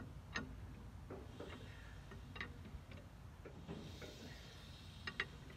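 Light metallic clicks and taps at uneven intervals from hand work on a 1926 Caterpillar Sixty tractor engine, with a short soft hiss about four seconds in.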